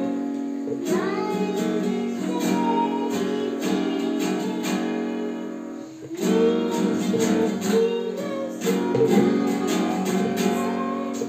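Acoustic guitar strummed with a woman singing along, the music dipping briefly about six seconds in before carrying on.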